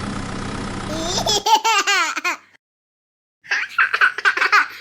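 A small child laughing in short bursts, with a brief gap midway. Under the start, a steady hum cuts off about a second and a half in.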